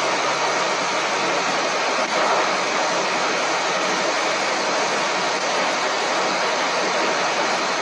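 A John Deere 9600 combine running steadily at work in the soybean harvest: a loud, even mechanical din that does not change.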